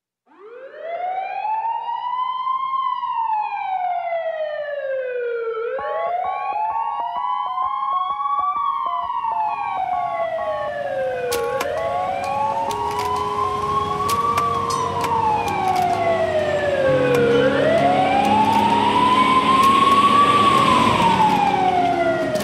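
Ambulance siren in a slow wail, rising and falling about once every six seconds. About six seconds in, music comes in beneath it and builds, with low notes added near the end.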